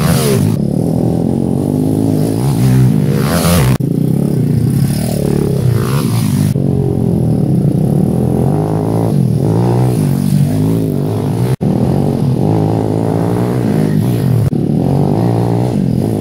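170cc pit bike engines running and revving off-road, the pitch rising and falling with the throttle, with a few abrupt cuts in the sound.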